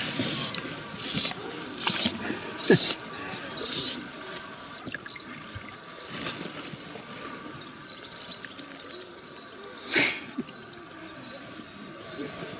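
A hooked grayling being landed from a boat on a fly rod: about five short hissing swishes of splashing water and line in the first four seconds, then a run of quick high chirps from a small bird, and one louder splash about ten seconds in.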